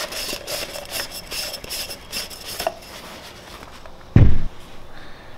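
Paper shop towel rubbing and wiping inside an oil filter housing cap, a scratchy, irregular rubbing, with a single dull thump about four seconds in.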